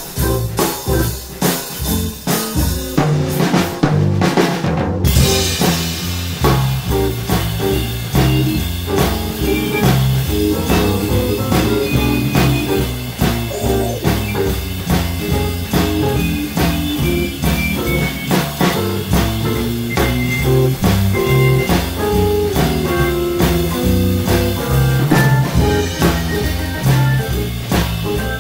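Live blues quartet playing: electric guitar, piano, bass and drum kit. Drum hits stand out for the first few seconds, and from about five seconds in the band fills out with a moving bass line and guitar and piano lines on top.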